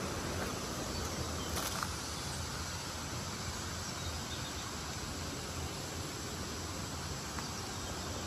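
Steady outdoor forest ambience: a continuous even hiss of insects and low background rumble, with one faint tick a couple of seconds in.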